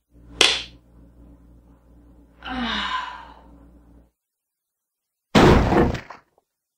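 A raw egg hitting a hardwood floor and cracking with a sharp smack, followed about two seconds later by a sigh that falls in pitch. Near the end comes a loud, short burst of noise.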